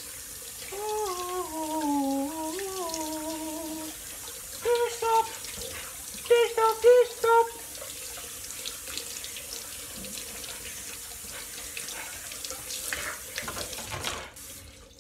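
Kitchen tap running steadily as hands are washed under it with dish soap, the water cutting off near the end. A voice hums and sings a tune over the water in the first half.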